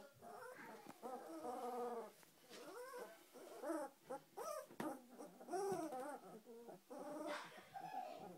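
Two-week-old doodle puppies whimpering and squeaking, a string of short calls rising and falling in pitch, several overlapping at once.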